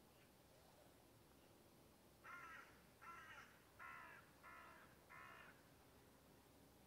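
A distant crow cawing five times in quick succession, the calls a little under a second apart, beginning about two seconds in.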